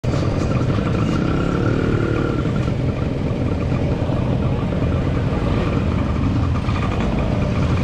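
Road traffic, with motorcycle and car engines running close by over a dense, steady rumble. A faint engine note stands out for a second or so near the start.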